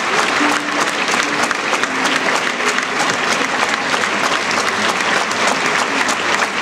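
Audience applauding, a dense, steady clapping that does not let up.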